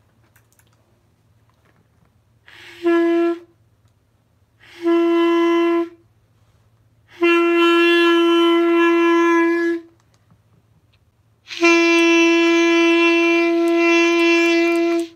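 Clarinet played on one repeated note: two short tones, then two long held tones, the last about three and a half seconds long. The first starts with an audible breath. It is blown as a test of whether the instrument sounds different after a piece came off.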